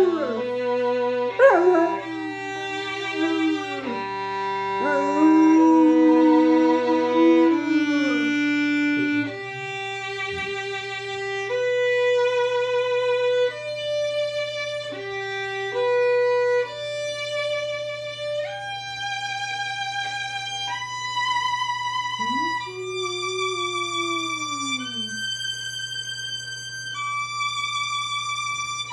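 A violin playing slow, held notes with vibrato that climb step by step in pitch. An Alaskan malamute puppy howls along over the first several seconds, then stops. A single drawn-out falling whine comes a little past the middle.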